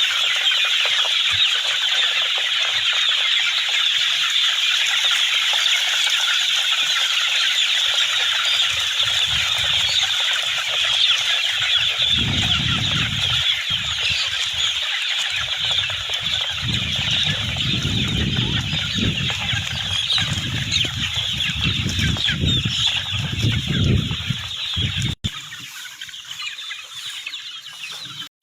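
A large flock of chickens clucking all together in a dense, continuous chatter. Low rumbling gusts come and go through the middle, and about three-quarters of the way through the level suddenly drops and the flock sounds quieter.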